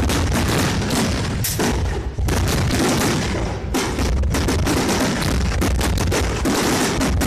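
Fireworks display: aerial shells launching and bursting in a rapid, dense string of bangs and deep booms.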